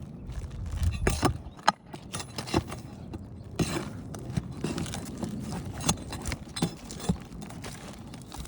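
An Owens Corning asphalt roof shingle being pried loose by hand: irregular scrapes, clicks and knocks as it is worked free of its fasteners.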